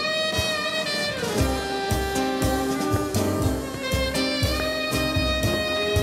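A small dance band playing jazz. A lead melody makes a long downward slide about a second in, over a steady drum-and-bass beat of about two thumps a second.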